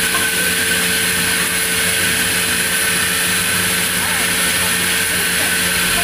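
Band sawmill running: a steady mechanical hum with constant whining tones and a hiss.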